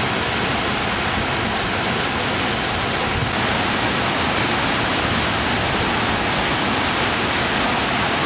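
Fast-flowing floodwater rushing steadily, a loud even hiss of water, stepping up slightly about three seconds in.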